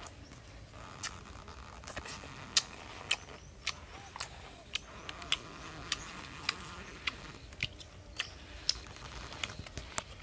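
A person eating roasted chicken by hand, tearing off pieces and chewing close to the microphone: a run of sharp, irregular clicks and crunches, about two a second.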